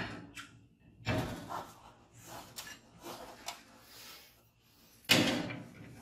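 Clanks, knocks and scrapes of a garage door's metal parts being worked back into the track. The loudest is a sharp clank about five seconds in.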